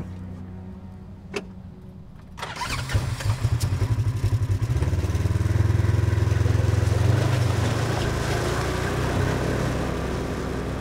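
Polaris Ranger XP utility vehicle's engine cranking and catching about two and a half seconds in, then running steadily as it pulls away and slowly fading near the end.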